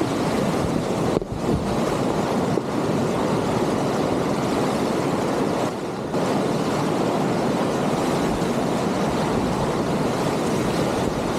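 Whitewater rapids of the Sill river at high water, rushing loudly and steadily around a kayak, with wind buffeting the microphone. The rush drops briefly about a second in and again about halfway through.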